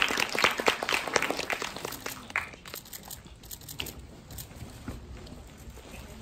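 Applause from a small audience and panel, dying away over the first two or three seconds, followed by quieter rustling and shuffling of clothes and chairs as people get up.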